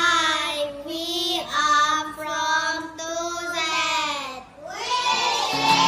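A high solo singing voice holding long, drawn-out notes with no accompaniment, breaking off briefly about four and a half seconds in; backing music comes in under it near the end.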